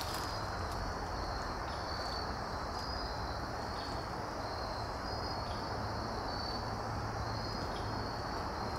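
Insects chirping: a steady high-pitched hum with short chirps repeating about once a second, over low background noise.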